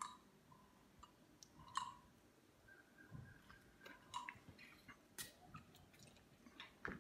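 Near silence: room tone with a few faint, short clicks scattered through it.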